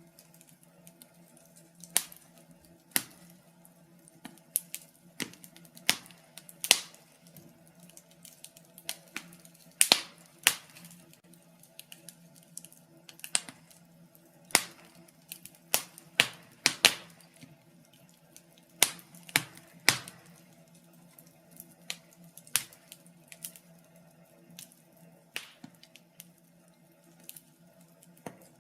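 Wood fire burning in a fireplace, crackling with irregular sharp pops, some much louder than others, over a faint steady hum.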